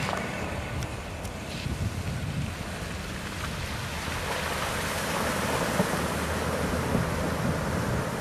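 A stock Jeep Liberty's engine runs steadily as the SUV drives into shallow muddy water. From about halfway through, the splash and rush of water thrown up by its tires grows.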